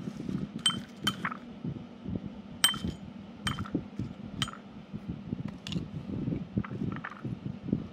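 A metal knife blade clinking against a ceramic bowl about six times while stirring dried crickets. A dry, crackly rustle runs between the clinks.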